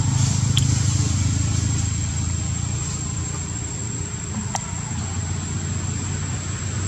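A motor engine running steadily nearby, a low drone that eases off a little about two seconds in, with a thin steady high whine above it.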